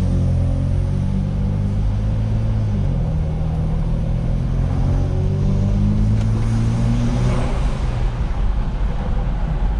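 Tuned BMW N54 twin-turbo straight-six running while the car drives. The engine note drops about three seconds in, climbs slowly for the next few seconds, then fades into a rougher rumble near the end.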